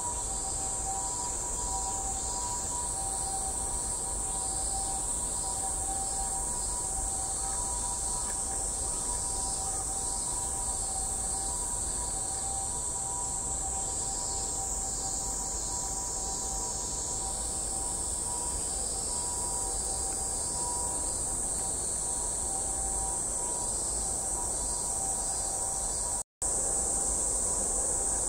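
Steady high-pitched insect drone with two faint, steady lower tones beneath it; the sound breaks off for a moment near the end.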